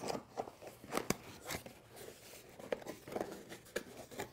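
Cardboard box being opened by hand: scattered small scrapes, taps and rustles as its tuck flap is pulled free and the lid lifted.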